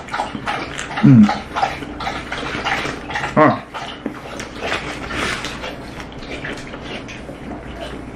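Beagle whining twice, a low falling whine about a second in and a higher one a couple of seconds later, over close crunchy chewing of a crispy fried chicken sandwich.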